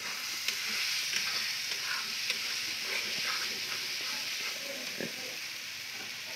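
Tomato-and-onion masala sizzling in an aluminium karahi while a metal spatula stirs it, with scattered light scrapes and taps of the spatula against the pan over a steady sizzle. The spices are being fried down until their raw smell is gone.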